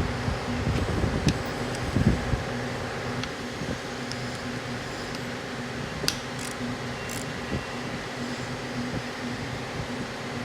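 A steady mechanical hum, with a few light, sharp metallic clicks and clinks of hand tools on engine parts during disassembly, most of them about six to seven seconds in.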